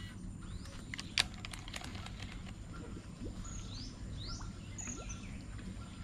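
Outdoor ambience with a steady low background rumble, one sharp click about a second in, and a few short, high falling bird chirps in the middle.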